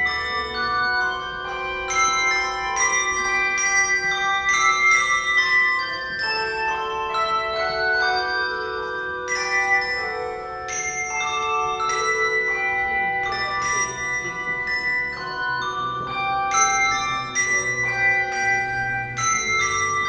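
Handbell choir ringing a piece: many handbells struck in quick succession, several new notes a second, each note ringing on and overlapping the next.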